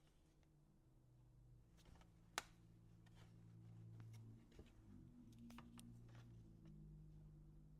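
Near silence: a few faint light clicks and taps from handling cardstock and double-sided tear and tape, over a low steady hum.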